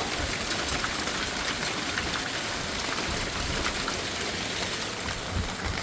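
Heavy storm rain pouring down: a steady hiss dotted with many sharp ticks of drops striking surfaces.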